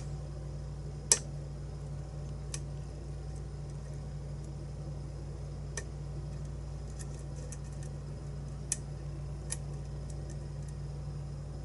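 Lock pick and tension wrench working the pins of a challenge lock: scattered small metallic clicks, the sharpest about a second in and a few more spread through, over a steady low hum.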